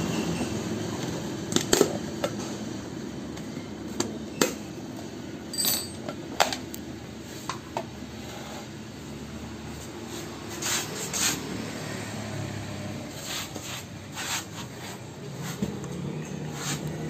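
Snap-on plastic lid of a 5 kg paint pail being prised off by hand: a scattering of sharp clicks, snaps and knocks.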